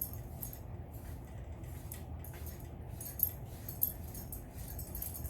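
A brush stroking through a dog's coat: a quick run of short strokes, several a second, with two sharper clicks a little after three seconds in.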